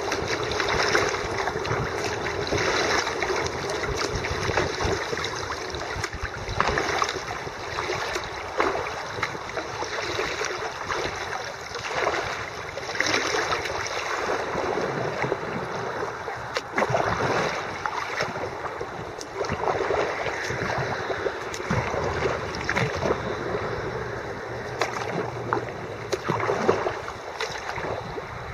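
Water rushing and splashing close around a kayak on a flooded river, with many short, irregular splashes that fit paddle strokes.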